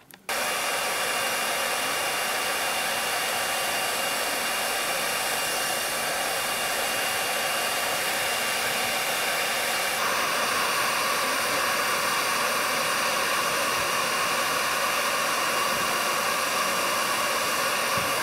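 Hot-air plastic welding gun blowing steadily, a loud hiss with a faint whine, as it melts a plastic filler rod into a crack in a plastic tank. It starts abruptly, and its tone shifts slightly about ten seconds in.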